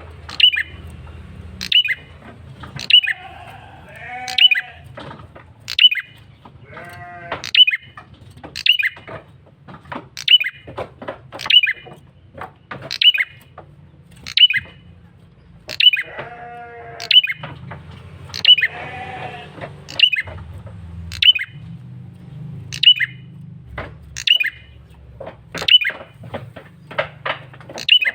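Male red-headed prenjak calling insistently: sharp, high, down-slurred chip notes about once every second and a bit. Four longer wavering, bleat-like calls come in between them.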